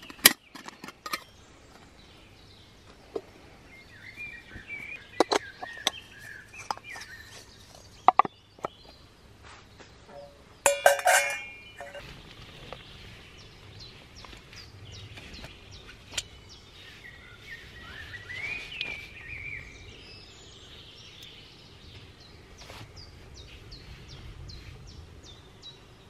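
Stainless steel camp cookware clinking and knocking as it is handled and set down, with one loud ringing metal clink near the middle. Birds chirp now and then in the background.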